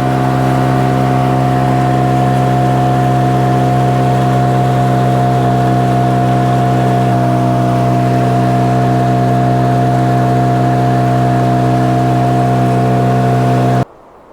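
A boat's outboard motor running at a steady speed with a constant hum, shifting pitch slightly about halfway through and stopping abruptly near the end.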